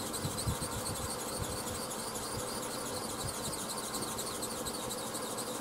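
Yanmar YM1500 tractor's diesel engine idling steadily, an engine the owner thinks is starting to overheat while its clutch stays stuck and will not disengage.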